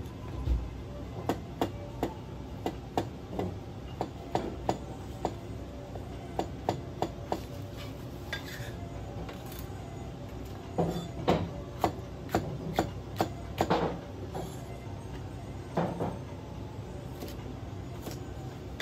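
Kitchen knife chopping on a cutting board: a series of sharp chops, about two to three a second in runs with short pauses, over a steady low hum.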